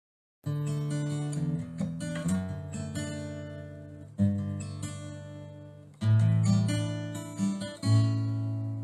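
Acoustic guitar playing the introduction to a worship song. It starts about half a second in, with a strummed chord roughly every two seconds, each left to ring and fade.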